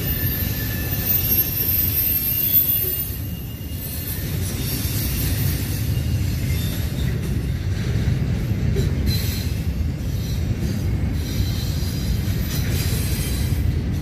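Double-stack intermodal container train's cars rolling past with a steady low rumble, and thin high squeals from the wheels on the rails.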